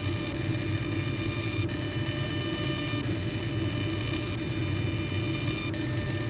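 Laser engraving machine running while its beam ablates a steel gun barrel in a rotary chuck: a steady hum with thin high-pitched whine tones that shift abruptly about two seconds in and again near the end.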